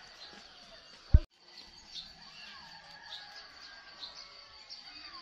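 Small birds chirping and calling on and off against a steady high background tone. About a second in comes a single loud low thump, followed by a split-second dropout where the recording cuts.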